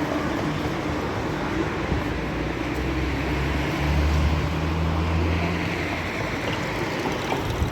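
Metro train running: a steady rumble and rushing noise with a low motor hum, loudest about four seconds in.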